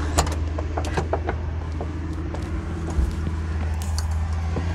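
Volvo FM420's 13-litre six-cylinder diesel idling with a steady low hum, overlaid by several sharp clicks and knocks from climbing up into the cab.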